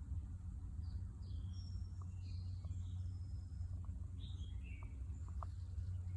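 Small birds chirping: short, mostly falling chirps come and go throughout, over a steady low rumble.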